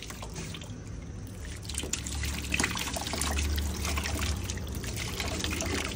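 Liquid trickling and pouring steadily, over a low hum.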